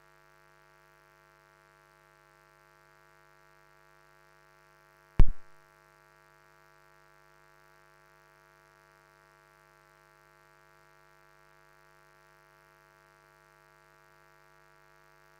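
Near silence with a faint, steady electrical hum from the sound system, broken once about five seconds in by a single loud, short thump.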